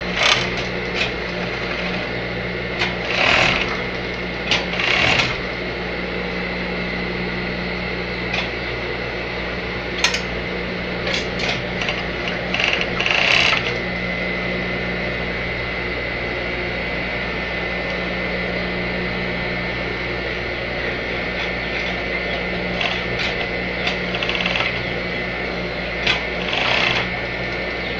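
Hercules industrial overlock (serger) machine running steadily, a constant motor hum with a high whine, as it sews bias binding onto a fabric edge through a folder attachment. A few short louder bursts stand out from the hum.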